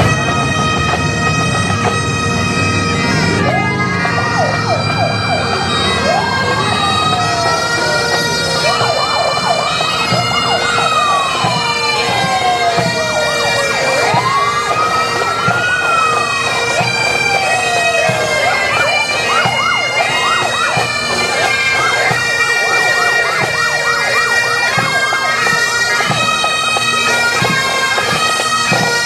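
A pipe band's Great Highland bagpipes play a marching tune over their steady drones. From a few seconds in, a siren wails slowly up and down over the pipes, fading out near the end.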